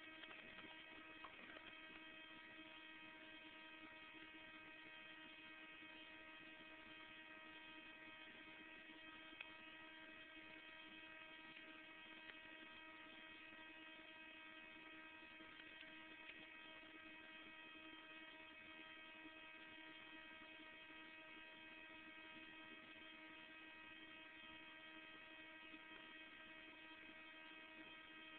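Near silence: a faint, steady electrical hum made of several fixed tones, with nothing else happening.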